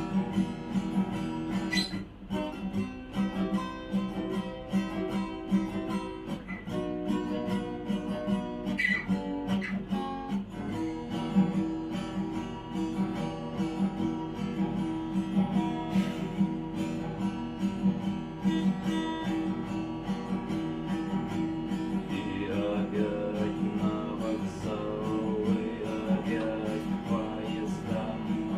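Acoustic guitar strummed in a steady rhythm using the "stuk" technique: chord strokes alternating with sharp percussive knocks where the palm damps the strings. The chords change a few times.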